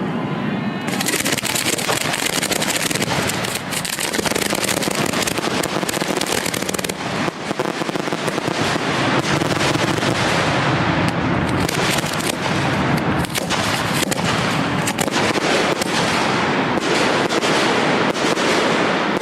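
Finale of a 1.3G consumer fireworks show: rack-fired shells launching and bursting in rapid, overlapping succession, a dense continuous barrage of bangs and crackle that thickens about a second in.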